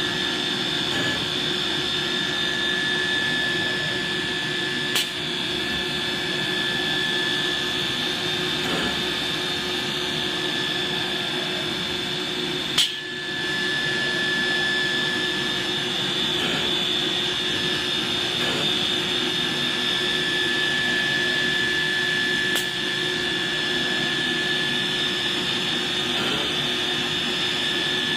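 CNC router running, with a steady high-pitched spindle whine over a constant machine noise. Three brief sharp clicks break in, about 5, 13 and 23 seconds in.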